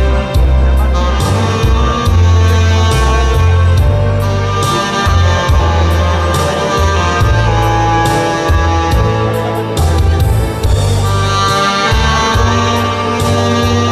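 Saxophone playing a slow melody over accompaniment with a bass line and a steady drum beat.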